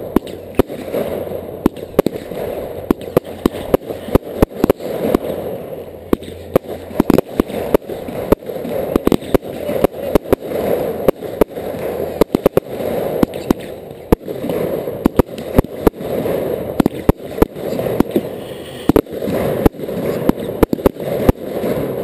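Fireworks display heard at close range: aerial shells launching and bursting, many sharp bangs in quick, irregular succession over a continuous noisy background.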